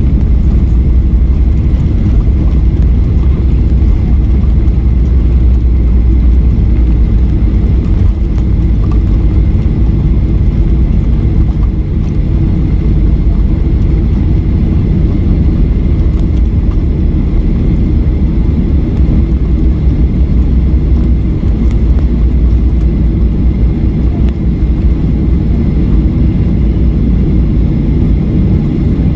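Cabin noise of a jet airliner on its landing rollout along a wet runway, spoilers raised: a loud, steady low rumble of engines, wheels and airflow as the plane slows.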